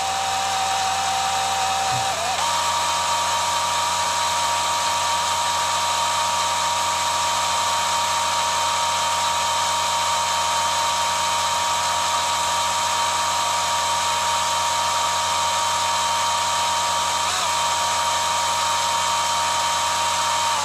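Power drill running steadily, boring out a seized brass plug in a dozer's transmission pressure port; its whine steps up slightly in pitch about two seconds in and then holds steady.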